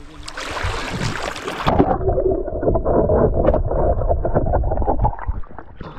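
Water splashing and sloshing close to the microphone. About two seconds in it turns suddenly muffled and keeps going, then eases off near the end.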